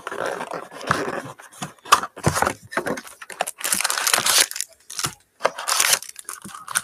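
Cardboard Panini Prizm hobby box being torn open by hand, then its foil-wrapped card packs pulled out and stacked: a run of irregular tearing, rustling and crinkling rasps.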